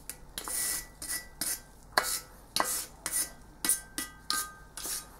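Steel wire brush scrubbing casting sand off a fresh metal casting: quick scratchy rasping strokes, about two a second, with a faint metallic ring after some of them.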